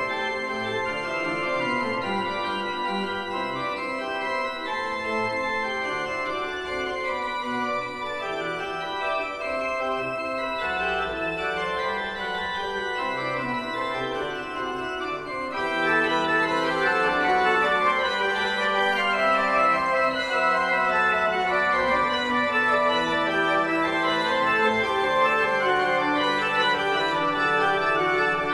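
Pipe organ playing, many voices at once over sustained low bass notes; a little over halfway through it grows louder and brighter.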